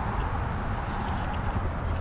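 Steady rumble of highway traffic crossing a bridge.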